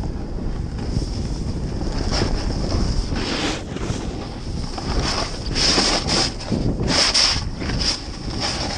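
Wind buffeting the camera microphone during a downhill run in snow. Several louder hissing surges, a few seconds apart, are the sound of the rider's turns scraping and sliding through the snow.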